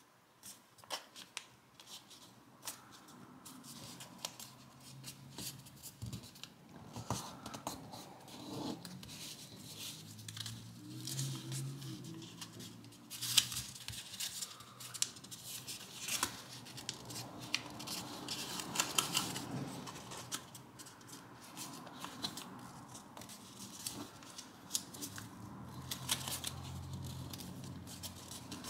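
Origami paper being folded and creased by hand: irregular crisp crackles, rustles and clicks of the paper, busiest around the middle, with one sharp snap about 13 seconds in.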